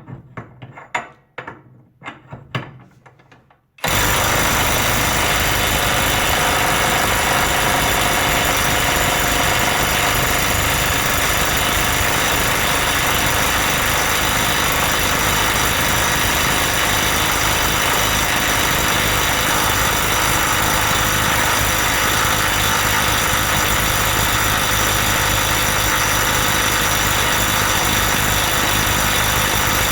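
A few handling clicks, then about four seconds in a Parkside Performance PPDSSA 12 A1 12V cordless impact wrench starts hammering. It keeps up a loud, steady impacting as it tries to break a tight nut loose.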